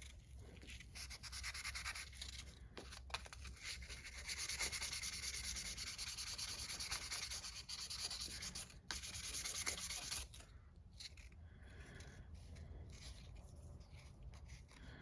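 Sandpaper scrubbing back and forth on an old pocket knife in quick, even strokes, busiest through the middle, then lighter and sparser strokes after about ten seconds.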